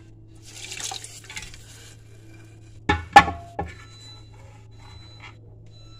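A steel ladle clanks three times against an aluminium pressure cooker in quick succession; the middle strike is the loudest and rings briefly. Before that there is a second of scraping or stirring noise.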